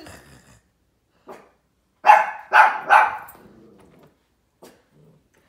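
Dog barking three times in quick succession during rough play, with a few fainter short sounds before and after.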